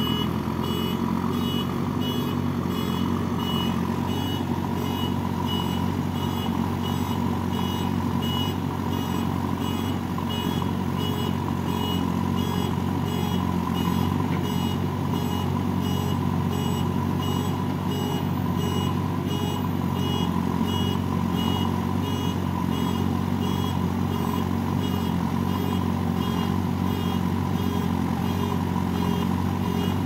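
JCB 3DX backhoe loader's diesel engine running steadily, with its reversing alarm beeping at an even pace over it.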